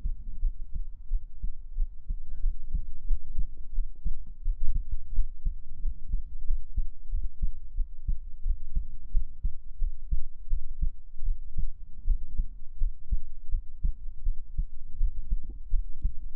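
A person's heartbeat heard up close: a steady run of low beats.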